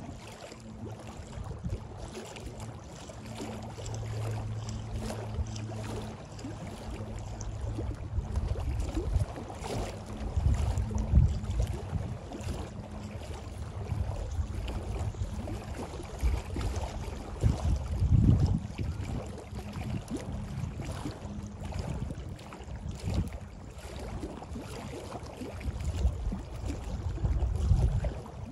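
Wind buffeting the microphone in gusts: a low rumble that swells and drops, strongest about ten seconds in, again near eighteen seconds and near the end, over a faint steady low hum.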